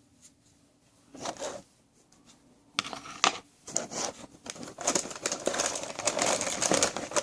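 Crinkling, rustling handling noise with small clicks as the toy sand kit's packaging and plastic tools are handled and taken out. A short rustle comes after about a second, then near-continuous crinkling from about three seconds in.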